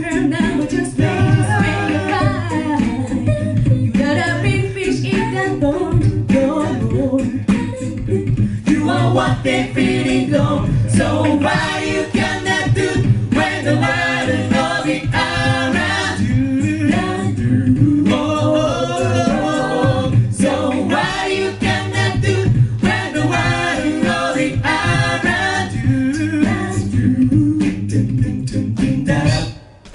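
An a cappella group singing live through the PA: several voices in harmony over a steady sung bass line, with a brief break just before the end.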